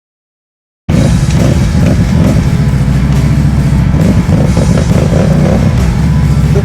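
Off-road vehicle engine running loud and steady, starting abruptly after about a second of silence.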